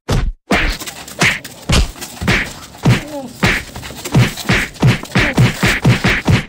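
A rapid series of punch and slap sound effects, whacks and thuds about two a second and quickening toward the end, over a steady noisy background.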